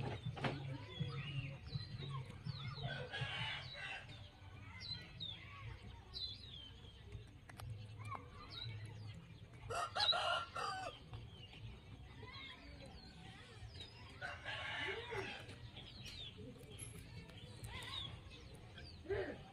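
Chickens clucking with a rooster crowing, three longer calls, the loudest about ten seconds in, over many short high chirps.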